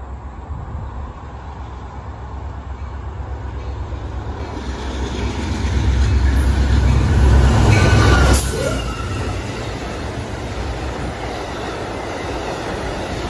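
Diesel-hauled Amtrak passenger train approaching and passing at speed: a rumble that builds to its loudest as the locomotive goes by about eight seconds in, then steady wheel and rail noise as the stainless-steel coaches pass.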